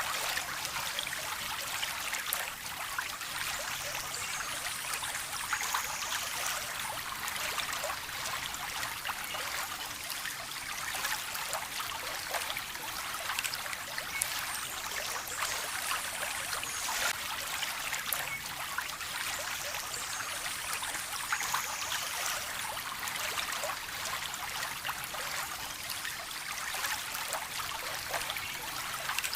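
A stream of water trickling and splashing steadily, a bright, even water sound with little low rumble.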